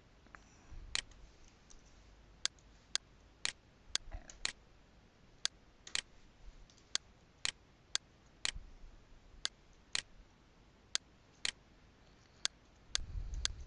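Faint, sharp ticks at a steady pace of about two a second, some beats missing, over quiet room hiss, with a short low rumble near the end.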